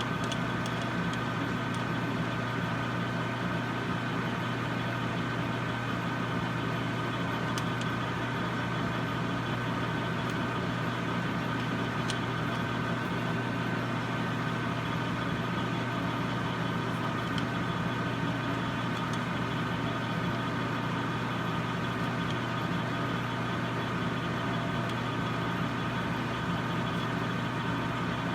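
Metal lathe running steadily with an even hum and whine from its motor and gearing while a center drill bores into the end of a steel workpiece. A few faint ticks sound over it.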